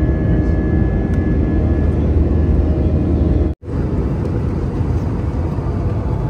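Jet airliner in flight heard from inside the passenger cabin: a steady, loud drone of engines and rushing air, heaviest in the low rumble, with a faint high whine over the first two seconds. The sound breaks off for an instant about three and a half seconds in, then carries on unchanged.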